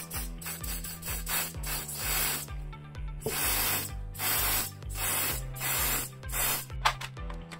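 Aerosol can of lubricating oil spraying in a series of short hissing sprays, some brief and some held for about half a second, one after another. Background music with a steady beat underneath.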